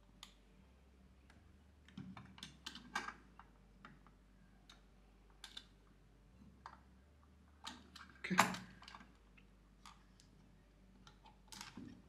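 Faint, scattered small clicks and taps of a CPU and the metal parts of an LGA1700 motherboard socket being handled as the processor is set into place, with a louder clack about eight seconds in.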